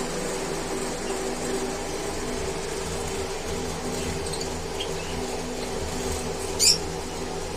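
Small cage birds chirping faintly a few times, then one short, loud high call near the end, over a steady mechanical hum.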